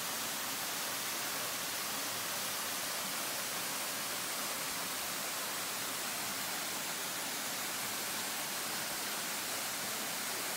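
Waterfall splashing into its pool: a steady, even rush of falling water.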